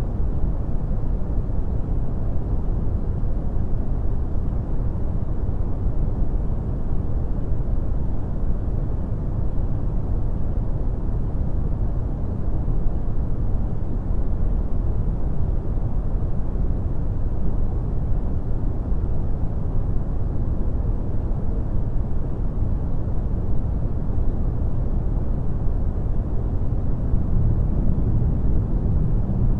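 Steady low rumbling noise without distinct events or any tune, its energy in the bass and low mids: a dark ambient noise bed.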